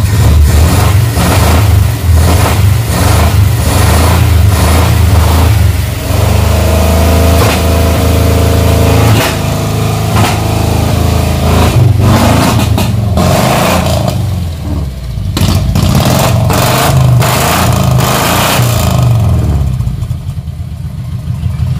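Mitsubishi Colt T120's four-cylinder petrol engine running loud and uneven with its mufflers off, revving up and down with rapid irregular pops through the open exhaust while its carburettor is dosed with cleaner spray.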